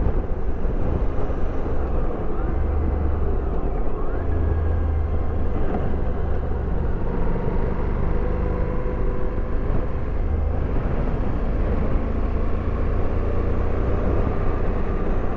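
Motorcycle running at a steady cruise with wind and road noise on the microphone. Its engine note drifts only slightly.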